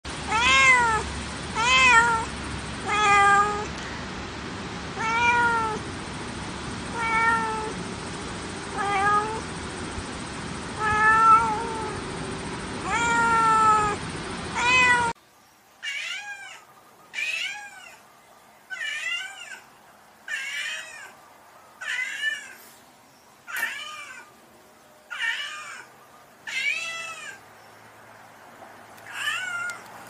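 Domestic cats meowing repeatedly: about ten meows over a steady background hiss. About halfway through, a cut brings a second cat whose meows are higher, coming roughly every second and a half.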